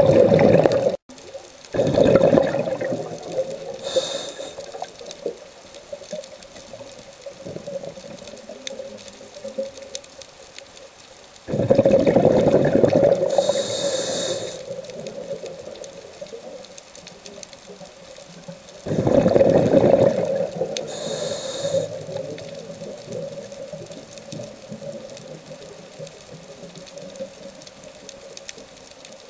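Scuba diver breathing through a regulator underwater: loud bubbling exhalations near the start, about 12 s in and about 19 s in, each followed by a short high hiss of air through the regulator, over a steady low hum.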